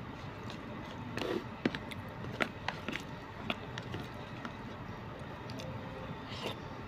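Eating sounds: a scatter of light clicks and taps from a plastic spoon against a plastic food container, with chewing, over a steady background hum.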